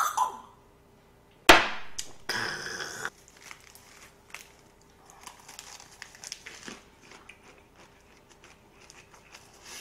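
A soju shot glass set down hard on the table about a second and a half in, a single sharp knock, followed by a short noisy rasp. After that comes faint rustling and crunching of lettuce leaves as a lettuce wrap is folded and eaten.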